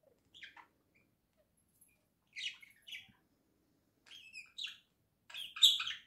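Budgerigars chirping in short high bursts, in four clusters about a second and a half apart, the last one loudest.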